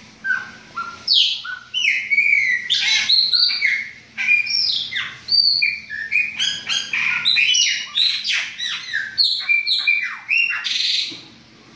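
Chopi blackbird (pássaro-preto) singing: a fast, varied run of whistled notes and chirps, many of them sliding downward, stopping shortly before the end.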